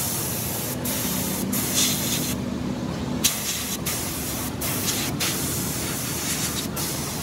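Compressed-air gravity-feed spray gun hissing as it sprays paint onto a hydraulic bottle jack. The hiss stops for a moment about six times as the trigger is let go and pulled again.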